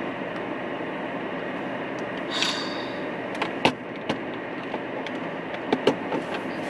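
Steady hum inside a stopped car's cabin, its engine and fan running. A short hiss comes about two and a half seconds in, and a few sharp clicks near the middle and end.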